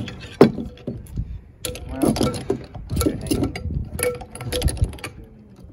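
Irregular metal clinks and knocks of a steel bearing puller and its fingers being positioned against a truck driveshaft's carrier bearing, with one sharper knock about half a second in.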